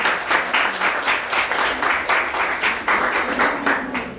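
Audience applauding: a room full of people clapping, easing off near the end.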